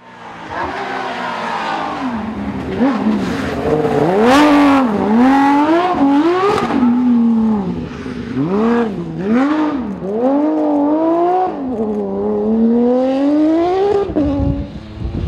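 A rally car engine revving hard, its pitch climbing and dropping again and again as it accelerates, shifts and lifts off.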